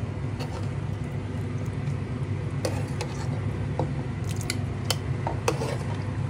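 Metal ladle dishing chicken and turnip curry out of a metal pot into a bowl: scattered short clinks and scrapes of the ladle against the pot, over a steady low hum.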